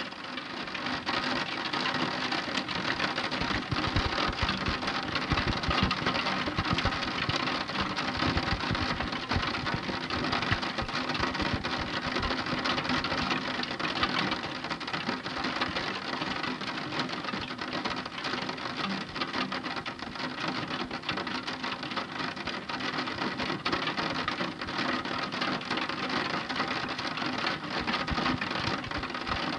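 Heavy rain falling, a dense steady patter of many drops.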